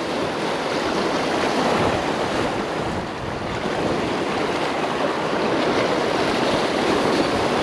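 Surf washing and breaking over the rocks of a jetty, a steady rushing with no pauses.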